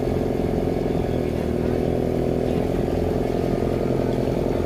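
A vehicle engine running steadily at one unchanging speed.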